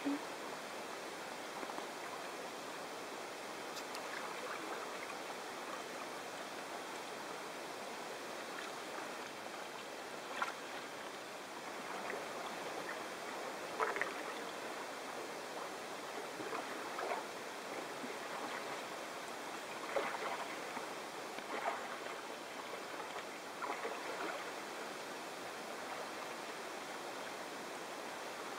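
A steady hiss of moving water, with short light splashes every few seconds, irregularly spaced, as a double-bladed kayak paddle dips into the water.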